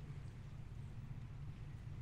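Faint, steady low hum of a distant engine, with a light even hiss of wind and water behind it.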